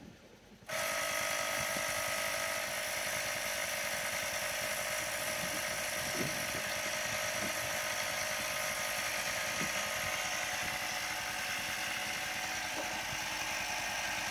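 Portable electric tire inflator switching on about a second in and running steadily with a high-pitched whine, pumping air into a flat pickup tire.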